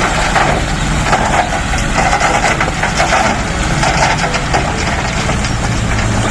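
Dump truck's diesel engine running steadily while its tipper bed rises and a load of rocks and soil pours out, the rubble clattering and crunching as it slides onto the pile.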